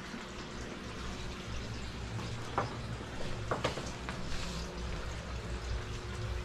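Steady hiss of a lit radiant gas wall heater with a low rumble, broken by a few sharp clicks of a basset hound's teeth on a bone, about two and a half and three and a half seconds in.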